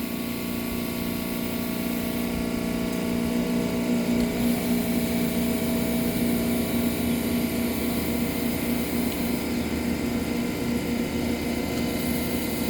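Rotary vacuum pump running steadily with a low, even hum, still connected to a refrigeration system. A high hiss comes and goes on top of it as nitrogen is let in to break the vacuum.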